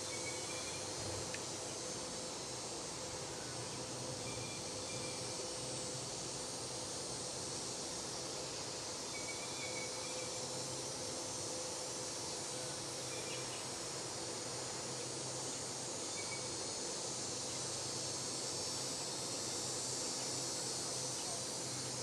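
Steady high-pitched drone of insects outdoors, with a faint low hum underneath and a few faint short chirps.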